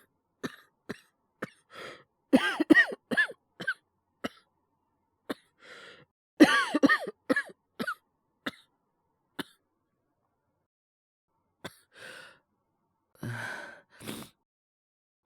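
A male voice actor coughing in fits as a character with a bad cold: a run of short coughs about two seconds in, another about six and a half seconds in, and single coughs between. Breaths and a long breath out come near the end.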